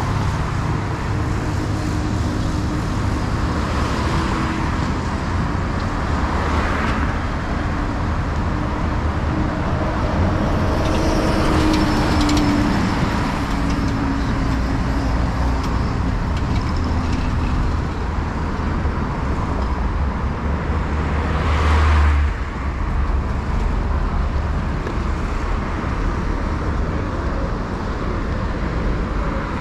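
Road traffic on a wide city avenue: cars and a bus passing over a steady low rumble, with one vehicle passing loudest about three-quarters of the way through.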